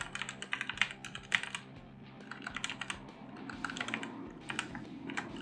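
Typing on a computer keyboard: quick, irregular runs of key clicks, with a short pause about two seconds in.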